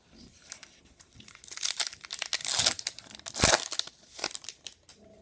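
A trading card pack's wrapper being torn open and crinkled by hand: crackling and tearing that is loudest in the middle, with one sharp snap near the end of the tearing.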